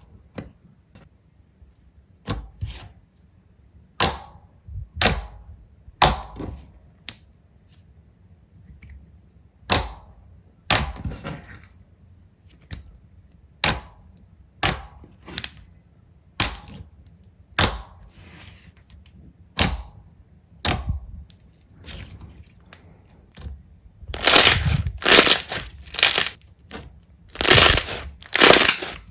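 Slime being pressed and squeezed by hand, giving sharp crackling pops about one a second, then louder, denser crunching near the end.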